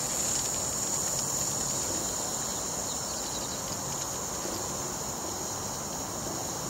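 Steam hissing steadily out of the opened drain of a brass displacement lubricator on a steam line under boiler pressure, as the lubricator is blown down before being filled with cylinder oil. It is a high hiss that eases slightly over the seconds.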